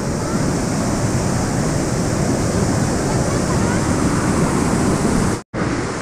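Waterfall rushing steadily in heavy spate, its flow swollen by rain upstream. The sound cuts out for a split second near the end.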